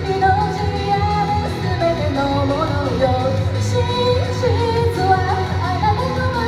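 A solo singer performing a pop song live over instrumental accompaniment with a steady bass line.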